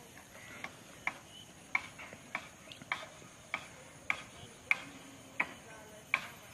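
Steady, sharp ticking, about three clicks every two seconds.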